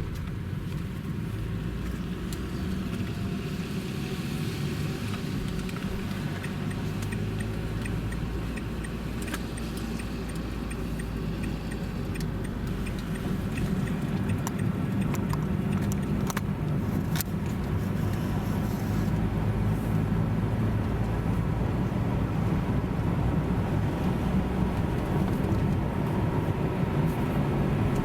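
Car engine and tyre noise heard from inside a moving car: a steady hum that grows a little louder, with small rattles and clicks.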